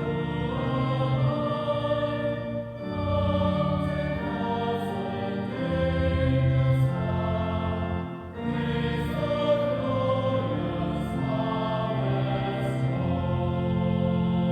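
Choir singing slowly in held, sustained chords that change every second or two.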